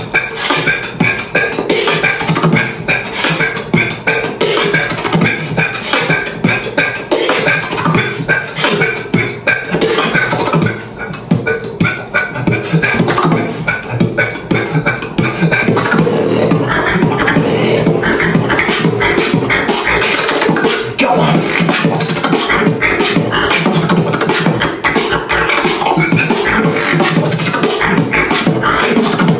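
Solo beatboxing: a rhythmic stream of mouth-made drum sounds (kicks, snares, hi-hats) with held vocal tones over the beat. The first half is made of separate, spiky hits; from about halfway the pattern turns denser and more continuous.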